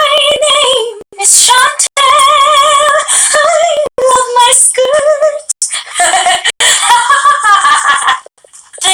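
A woman singing solo in sustained phrases with strong vibrato, breaking briefly between lines.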